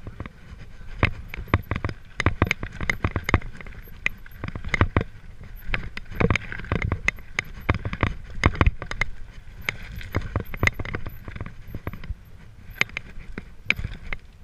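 Mountain bike rattling down a rocky trail: tyres knocking over loose stones and the bike jolting and clattering in a dense, irregular run of knocks, with a steady rolling rumble underneath.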